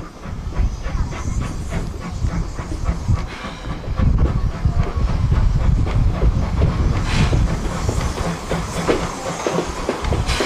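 Steam-hauled train running past, its wheels clicking over the rail joints above a low rumble, louder from about four seconds in.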